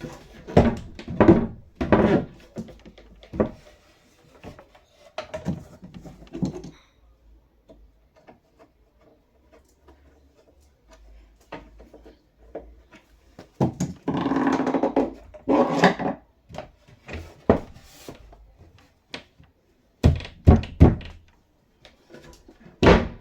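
A wooden cabinet door being swung open and shut on its newly re-attached hinge, with a series of knocks and thunks as it closes against the cabinet. The thunks come in short clusters with quiet gaps between.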